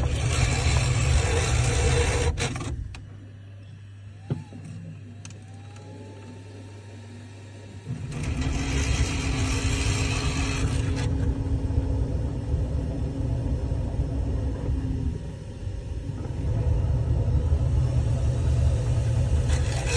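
Bambu Lab H2S 3D printer running its filament-load cycle: loud mechanical whirring that drops to a quieter hum after about three seconds, with a click and a short rising whine around four to five seconds in. Loud whirring returns about eight seconds in, with a hissing rush for about three seconds, and carries on with a brief dip near the middle.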